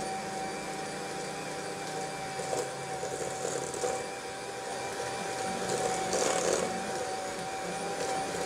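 Electric hand mixer running steadily, its beaters churning a sugar and melted browned-butter mixture in a stainless steel bowl, with a steady motor whine. It grows louder twice, about three seconds in and again around six seconds.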